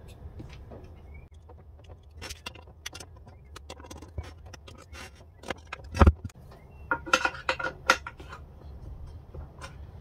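Wooden blocks and small metal hardware being handled on an aluminium extrusion rail: scattered light clicks, a single loud knock about six seconds in as a block is set down on the rail, then a quick run of metallic clinks.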